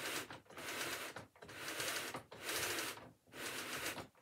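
Melbourne W-class tram destination blind being wound through its box by hand: the blind rustles and scrapes over its rollers in regular strokes, about one a second, with short pauses between turns.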